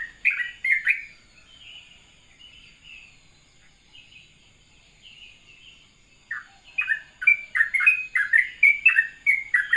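Yellow-vented bulbul (trucukan) singing its rapid, bubbly 'ropel' song of quickly repeated chirping notes. It drops to soft, faint warbling for a few seconds, then bursts back into fast loud phrases about six seconds in.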